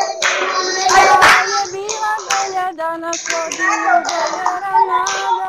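A group of children singing a song together, with a few hand claps about a second in, heard through a video-call connection.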